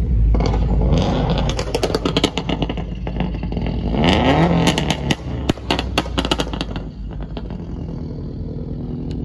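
Sports car engines running as cars pull away in a slow queue, one engine revving up briefly about four seconds in, with a run of sharp clicks over the steady engine sound.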